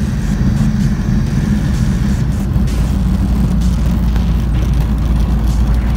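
Light aircraft's propeller engine running with a steady low drone, heard from inside the cockpit as the plane rolls along the runway.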